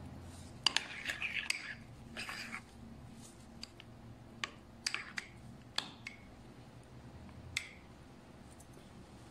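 Metal spoon stirring a thick sauce in a ceramic bowl: irregular sharp clinks of the spoon against the bowl, about ten in all, some with a short wet scraping smear.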